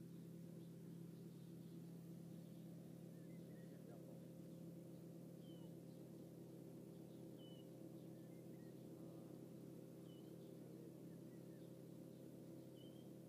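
Near silence over a steady low hum, with a small bird's faint short chirps repeating every two to three seconds.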